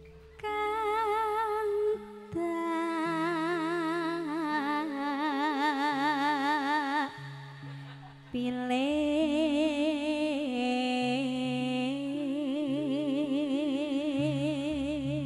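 A female sinden singer's voice through the PA, holding long notes with strong, even vibrato in three unhurried phrases, over steady low held notes from the accompaniment. A short pause comes about 2 seconds in and a longer one about 7 seconds in.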